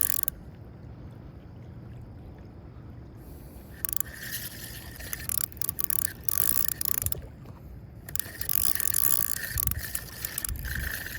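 Fishing reel whirring as line is cranked in, in three spells: about four seconds in, again at eight seconds, and briefly near the end.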